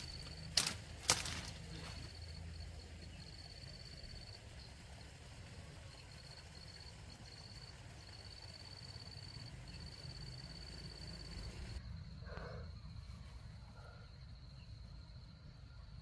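Outdoor rural ambience: a high, thin insect trill in broken stretches over a low rumble, with two sharp clicks about a second in.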